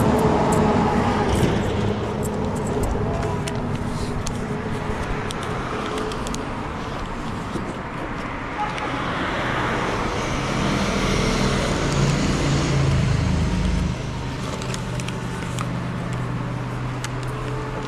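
Motor vehicle engine running with road traffic noise, growing louder for a couple of seconds in the middle.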